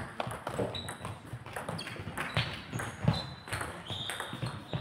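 Table tennis rally: the ball clicking sharply off rackets and table in a quick, irregular back-and-forth, with a few short high squeaks mixed in.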